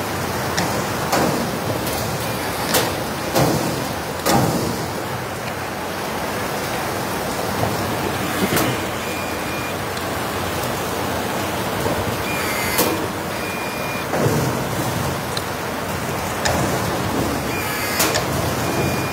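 Steady hiss of heavy rain, with a string of sharp, irregularly spaced snaps as blind rivets are set and their mandrels break off. A few short high whines come from the Hilti RT 6-A22 cordless riveter's motor pulling the rivets.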